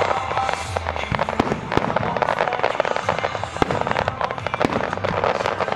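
Barge-fired fireworks going off in a rapid volley: a dense, unbroken run of pops and bangs from low fan-shaped bursts and rising shells.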